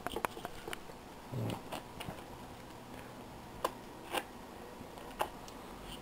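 Light handling noise from a rotary hammer and its SDS Plus bit being worked at the chuck to release the bit: a soft thump about a second and a half in, then a few separate sharp clicks.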